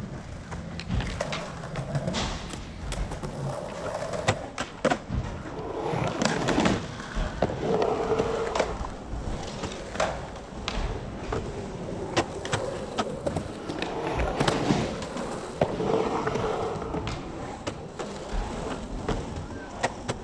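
Skateboard wheels rolling and carving on a concrete pool bowl, the wheel roar swelling and fading in waves, with many sharp clacks of the board and trucks against the concrete.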